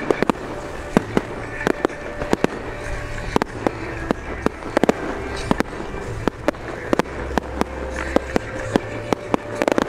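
Aerial firework shells bursting overhead: a steady run of sharp bangs, irregularly spaced at about three a second.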